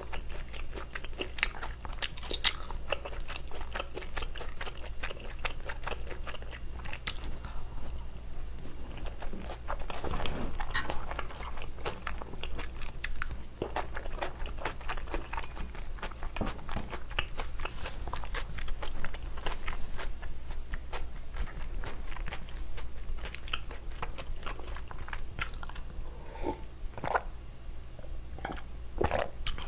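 Close-miked chewing of meatball spaghetti in tomato sauce: soft, wet mouth sounds and small irregular clicks. Near the end, swallowing of a drink.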